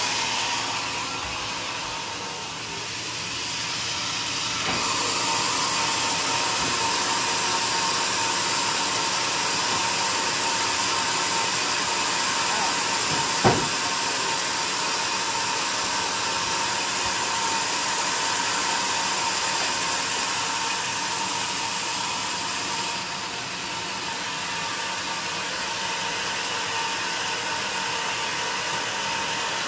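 Band sawmill running with a steady mechanical hiss and a faint whine, while a log is set on its carriage; a single sharp knock comes about halfway through.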